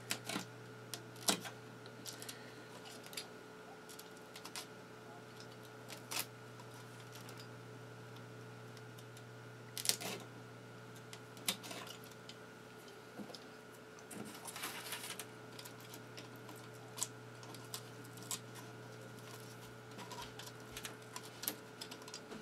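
Hobby knife cutting paper-faced foamboard: scattered light clicks and scratches, with a longer scratchy stretch about two-thirds of the way through. A steady low hum runs underneath.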